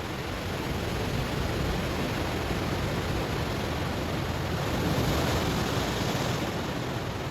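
Ocean waves washing onto a stony shore: a steady rush of surf that swells louder and hissier about five seconds in, then eases back.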